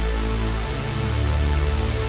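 Tone2 Saurus 3 software synthesizer playing its 'Elektron' bass preset: sustained synth bass notes, with a change to a new note about two-thirds of a second in.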